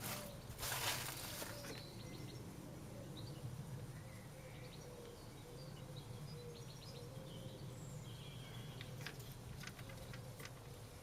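Quiet outdoor background: a low steady hum with faint, scattered bird chirps, and a brief rustle of handling noise about a second in.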